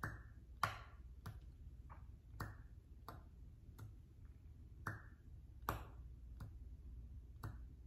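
Small facial suction cup being flash-cupped on the skin of the upper eyelid: it is squeezed on and popped off again and again, giving about a dozen short sharp pops, roughly one or two a second.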